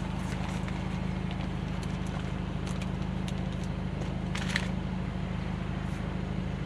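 A steady low mechanical hum with a few faint, scattered clicks from a puppy chewing a treat.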